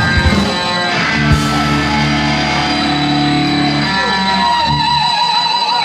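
A live punk band's distorted electric guitar and bass hold sustained, ringing notes with little drumming. The low end drops out about five seconds in, leaving the guitar sound and a steady high whine.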